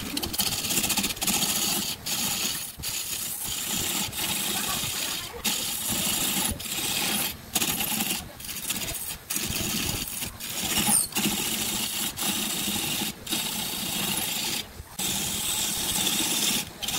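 Wood lathe spinning a segmented glued-up wooden blank while a turning gouge cuts into it, making a steady hissing, scraping cutting noise over the lathe's running motor. The cut is broken by short drop-outs about once a second.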